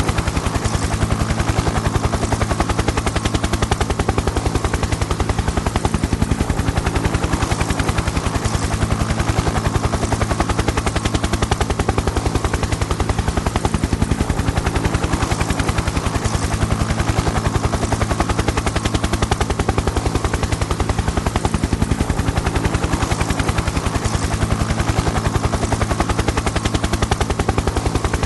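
Helicopter in flight: the rotor blades make a rapid, even chopping over a steady low engine drone. Level and pace stay constant throughout.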